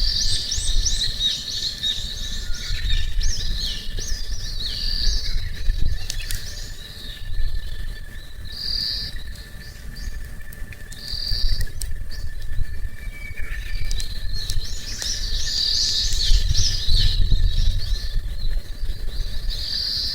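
Small wild birds singing and chirping in quick, varied phrases, busiest at the start and again near the end, with a quieter stretch in the middle. Underneath runs a low rumble, with now and then a sharp click.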